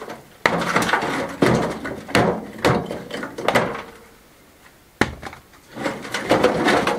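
Rubble and stones being scooped up and dropped into a metal wheelbarrow: bursts of scraping and clattering, a short pause, then a sharp knock and more clatter near the end.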